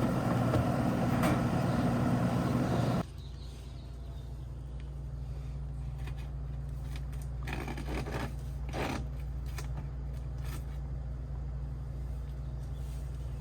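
Central air conditioning unit running steadily and loudly, cut off suddenly about three seconds in. A low steady hum follows, with a few short scraping sounds.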